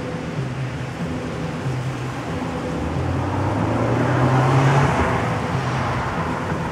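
A motor vehicle passes, its hum and rush rising to a peak about four and a half seconds in and then fading, over a steady background rush.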